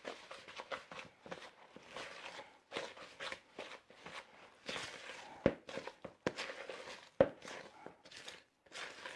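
A utensil stirring quick-bread batter in a mixing bowl, folding wet ingredients into the flour: irregular scraping and squelching strokes, with a few sharp knocks of the utensil against the bowl about halfway through.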